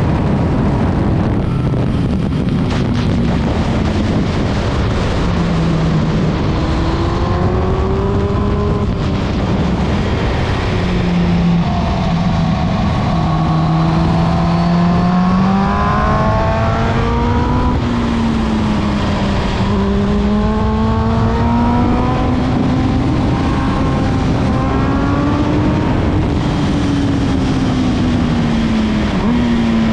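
MV Agusta Brutale 910's inline-four engine under way, its pitch climbing and dropping repeatedly as the bike accelerates and slows, over a loud, steady rushing noise.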